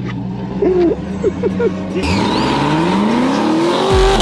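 Twin-turbo C8 Corvette's V8 idling, then, about two seconds in, the car launching hard with its engine note climbing steadily under full throttle to an upshift near the end.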